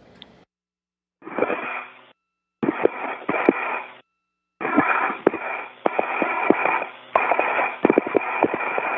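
Space-to-ground radio channel keying open in three bursts: narrow-band static hiss with clicks and crackles, dropping to dead silence between transmissions.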